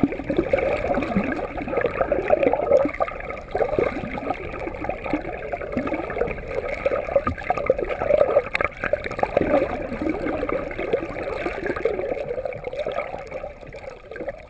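Water sloshing and gurgling around kayaks, a continuous run of small irregular splashes.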